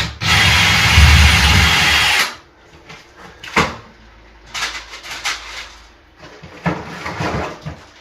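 Power drill running for about two seconds as it bores a pilot hole into the door, then stopping, followed by quieter knocks and handling sounds.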